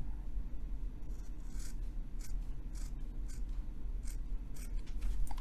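Scissors snipping through a cotton pad, a run of short crisp cuts about two a second, starting about a second in.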